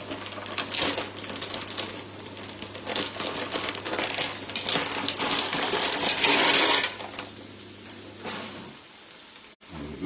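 Frying pans on the stove: onions and breadcrumbs toasting in oil, crackling and sizzling, with scraping and small clatters as the pans are handled. The sizzle surges louder about six seconds in, and a steady low hum stops near the end.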